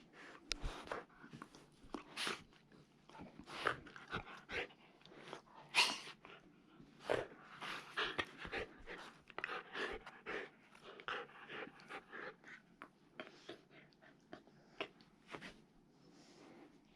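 Kai dog puppies making a stream of short, irregular dog noises, bursts coming every half second or so without a steady rhythm.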